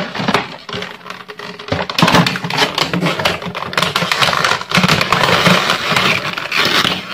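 Plastic toy packaging and parts being handled, a rapid crinkling and clicking clatter that grows louder about two seconds in.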